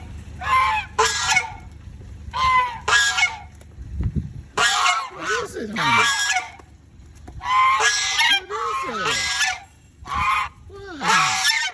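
Chinese goose honking loudly and repeatedly in pairs and short runs, with lower falling notes between some honks: excited calling for attention.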